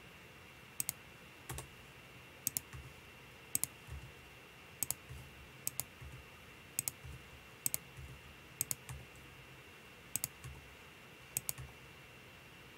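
Computer keyboard and mouse clicking about once a second, each stroke a sharp pair of clicks with a soft low knock: the E key pressed again and again to extrude vertex after vertex.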